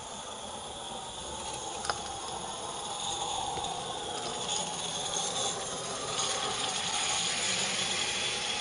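16mm-scale live-steam model locomotive running on a garden railway, hissing and rattling, growing louder as it draws near. A single sharp click about two seconds in.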